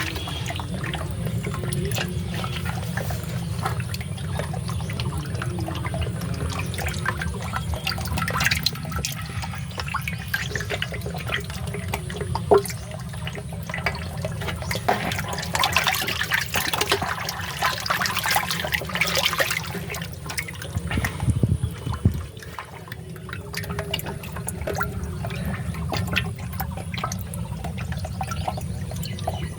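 Water splashing and trickling in a koi carp pond, with many small irregular splashes, busiest a little past the middle, over a steady low rumble.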